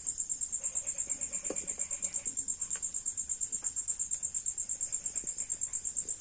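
Cricket trilling steadily in a high, evenly pulsed chirp, about eight pulses a second, with a few faint clicks.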